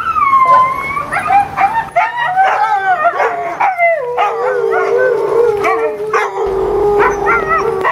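Siberian huskies howling and yipping together, several voices overlapping with sliding pitch. It opens with a falling howl, then comes a run of short yips, and from about halfway a long low howl is held to the end with yips over it.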